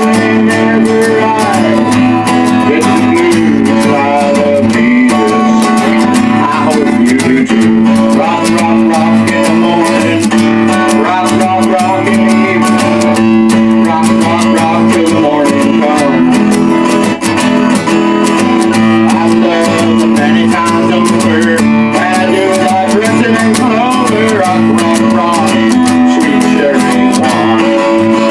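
Guitar strumming chords in a steady rhythm.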